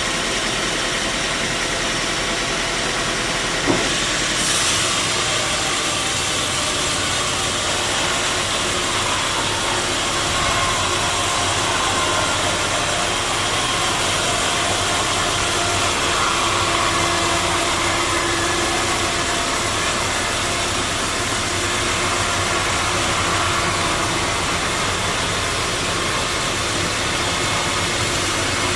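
Sawmill machinery running steadily, with a single sharp knock about four seconds in.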